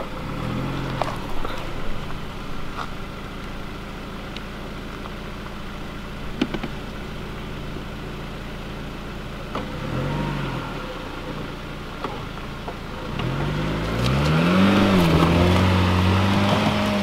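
Jeep Cherokee Trailhawk's engine pulling under load up a steep dirt hill. It rises in pitch briefly near the start and again midway, then revs up and holds high and loudest near the end as the SUV climbs.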